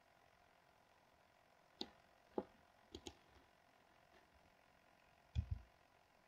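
Near silence with a few faint, sharp computer mouse and keyboard clicks, then a duller knock about five seconds in.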